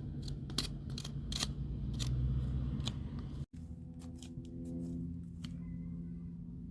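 Digging by hand in dry soil around a potato plant: irregular sharp scrapes and crunches, more frequent in the first half and sparser after a brief break in the middle.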